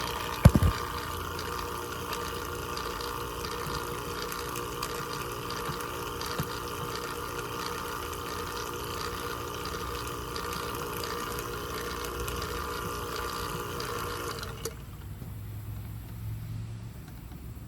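Refrigeration vacuum pump running steadily on a mini-split line set, then switched off with a click about three-quarters of the way through. A sharp knock comes just after the start.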